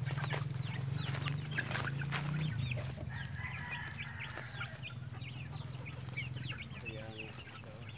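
Young chickens peeping and clucking, many short high chirps one after another, over a low steady hum that fades after the first couple of seconds.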